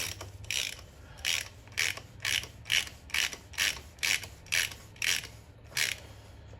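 Ratchet wrench with a 1-1/4" socket turning the oil filter housing cap in repeated quick back-strokes, about two clicking bursts a second, stopping near the end.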